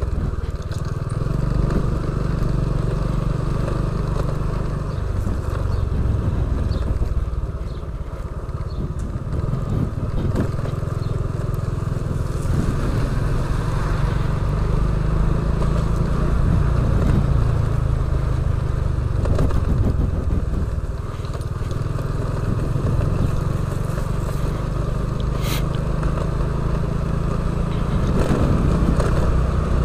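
Small step-through motorcycle riding along a street, its engine running steadily under wind and road noise.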